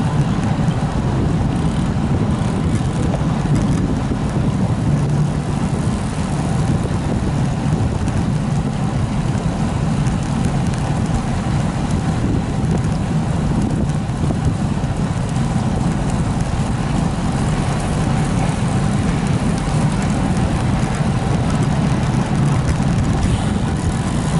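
Steady, low wind rush on the microphone of a camera carried by a cyclist riding at speed.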